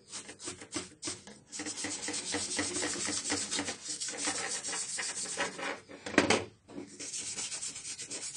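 Bristle paintbrush scrubbing dust off a laptop motherboard in many quick, scratchy strokes, with a brief louder knock a little after six seconds.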